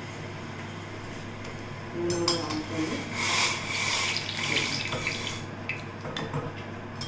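A steel spoon stirring a thin sauce in a small steel bowl: wet swishing with light clinks of spoon on metal, loudest from about two to five and a half seconds in, over a low steady hum.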